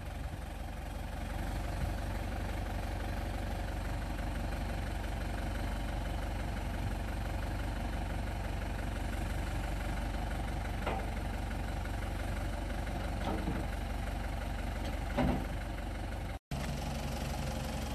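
Ford backhoe engine running steadily while its bucket presses down on a large tractor tire to break the bead from the rim. The sound cuts out for an instant near the end.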